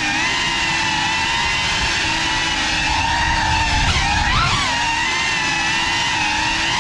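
GEPRC FPV quadcopter's brushless motors and propellers whining steadily, the pitch wavering with throttle, with a quick drop and surge in pitch about four seconds in.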